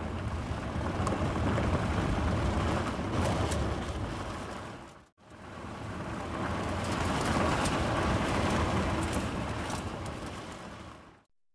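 Vehicle drive-by sound effect played twice: each pass swells up to a low rumbling peak and fades away over about five seconds, with a brief break between them.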